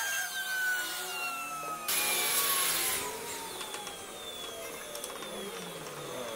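CNC router spindle whining as its bit carves wood, the whine falling steadily in pitch. A burst of cutting noise comes about two seconds in and lasts about a second.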